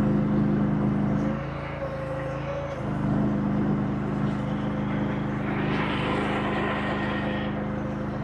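Engine of a small earthmoving machine working, a compact excavator or skid steer, its note easing off about a second and a half in and coming back up near three seconds as the load changes. A harsher hiss or scrape rises over it for a couple of seconds in the second half.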